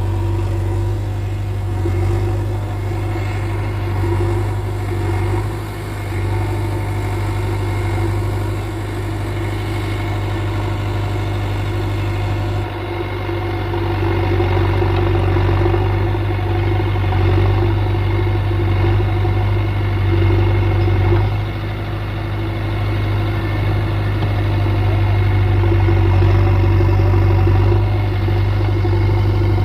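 JCB backhoe loader's diesel engine running steadily, its level rising and falling a little as it works.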